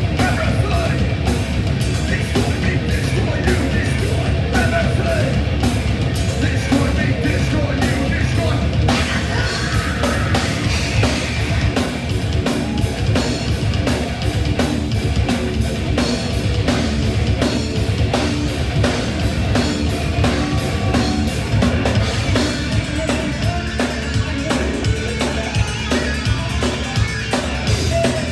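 Heavy metal band playing live at full volume, with fast, dense drumming.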